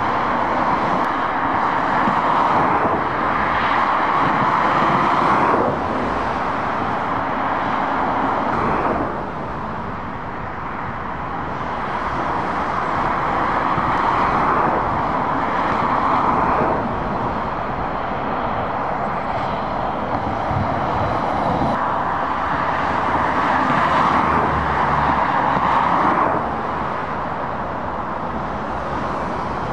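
Dual-carriageway traffic, lorries and cars, passing below: tyre and engine noise that swells and then drops off sharply about four times as each group of vehicles goes by.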